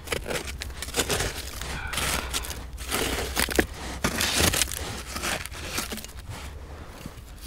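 Small hand digging tool scraping and picking through gritty, debris-filled privy soil, in a rapid run of short crunching scrapes with a few louder strokes around the middle.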